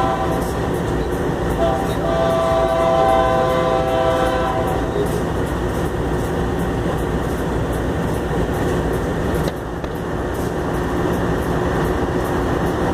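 Diesel locomotive air horn sounding a steady chord in two blasts, the first cutting off about half a second in and the second held from about 2 to 4.5 seconds, as the train approaches. A loud, steady rushing noise runs underneath.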